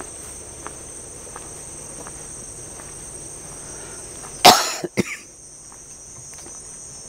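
Insects chirring in a steady high drone, with a person coughing about halfway through: a sharp loud burst and a shorter second one half a second later.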